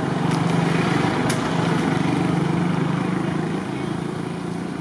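A small engine running steadily in the background, easing off slightly near the end.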